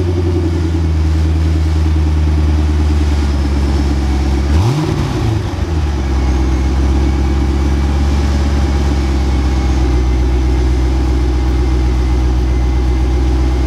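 1997 Corvette C5's LS1 V8 idling steadily through its quad exhaust, with one quick throttle blip about five seconds in that rises and falls in pitch before it settles back to idle.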